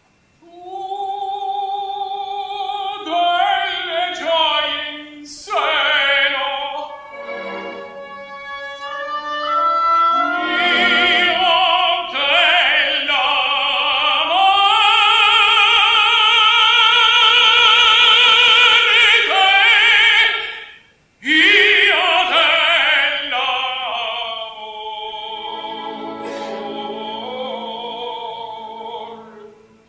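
Operatic tenor voice singing live over an orchestra, with a wide vibrato. About halfway through it holds a long, loud high note, cuts off briefly, then goes on more softly.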